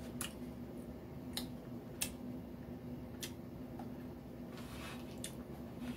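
Fried chicken being pulled apart by hand in a foam takeout clamshell: a handful of sharp clicks and creaks, with a brief rustle about four and a half seconds in, over a low steady hum.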